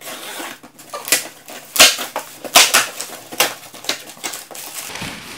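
Cardboard shipping box being opened: a box cutter slits the packing tape, then the cardboard flaps are pulled apart, with a run of sharp cardboard snaps and rustling.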